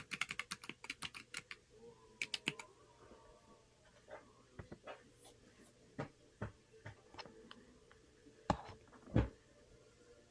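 Typing on a Corne split mechanical keyboard: a quick run of keystrokes in the first second and a half, a short flurry about two seconds in, then slower single keypresses, with two louder, deeper key strikes near the end.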